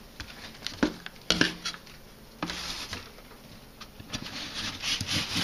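Fibre rush rustling and scraping against the woven seat as it is pulled and pressed into place by hand, with a few light knocks.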